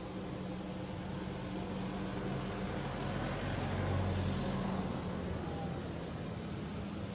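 Steady background hum and hiss of distant motor traffic, swelling a little about four seconds in.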